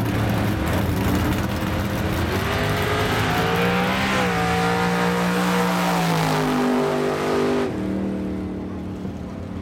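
Big-block Chevy drag truck's V8 rumbling at the line, then launching and running hard down the strip: the engine note climbs steeply, then falls in steps as the truck passes and pulls away, and drops off sharply about eight seconds in as it lifts at the end of the run.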